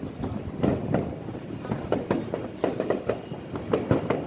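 A continuous barrage of fireworks: many irregular bangs, several a second, over a steady rolling rumble.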